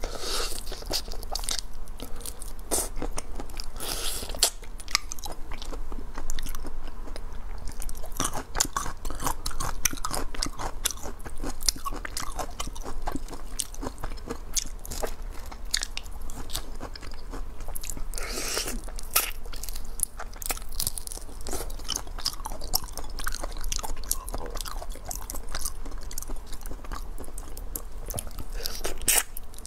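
Close-miked biting and crunching through the shells of whole lemon-marinated raw shrimp (Chinese drunken shrimp), with chewing and a dense run of small irregular crackles and clicks.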